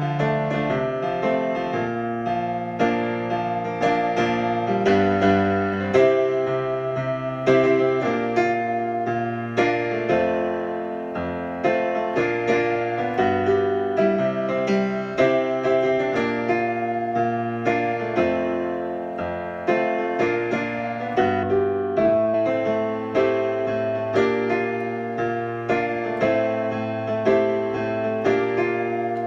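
Digital piano played with a piano voice: chords and a melody over held low bass notes, new notes struck every second or so.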